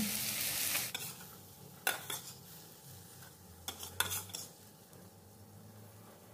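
Stir-fry sizzling in a wok for about the first second, then a few sharp metal clinks and scrapes of a spatula against the wok as the squid and vegetables are scooped out into a bowl.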